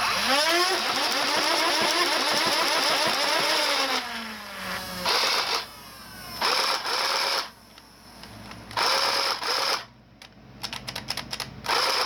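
Modded Nerf Rapidstrike blaster, running off a 12-volt RC car battery, firing full-auto: the flywheel motors whine up in pitch, fire a long burst, then wind down in pitch. Three shorter revving bursts follow, then a run of quick clicks near the end.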